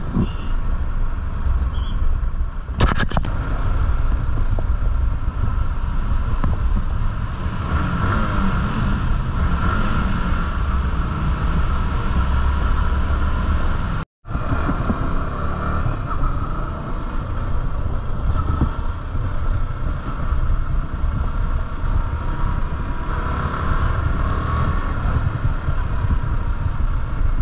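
Yamaha R15 V4's 155 cc single-cylinder engine running steadily at low road speed, with wind rush on the bike-mounted camera. The sound drops out for a moment about halfway through.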